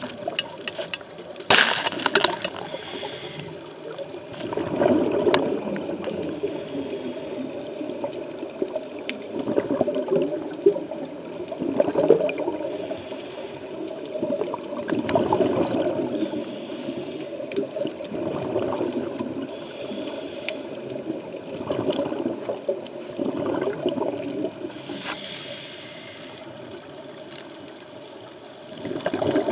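Scuba regulator breathing heard underwater: short hisses of inhalation alternating every few seconds with rumbling bursts of exhaled bubbles. A sharp knock about a second and a half in.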